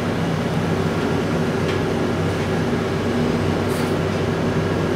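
Steady low mechanical hum made of several even tones, with no change in level.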